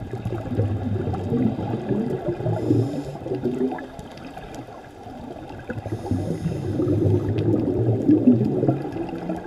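A diver's scuba regulator heard underwater: long gurgling rushes of exhaled bubbles, one over the first three seconds or so and another through the second half, with a quieter gap between breaths.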